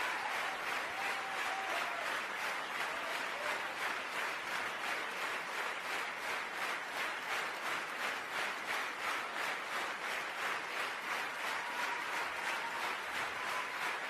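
Large theatre audience applauding an ovation, the clapping falling into a steady beat in unison.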